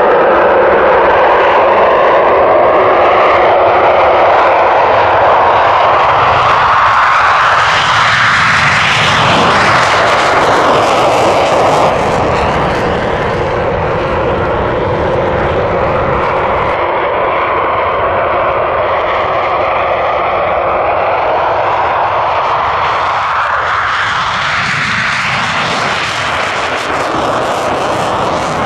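Loud, continuous jet noise from RAF Eurofighter Typhoon FGR4 jets coming in to land. Two pass close by, one about a third of the way in and another near the end.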